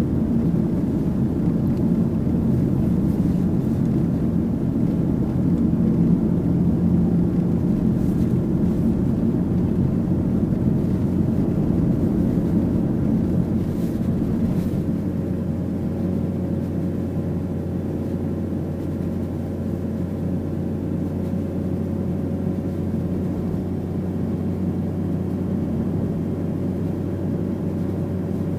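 Steady engine and road noise of a Mitsubishi Pajero Mini under way, heard from inside the cabin as a low drone. It eases slightly about halfway through, when a faint steady hum joins in.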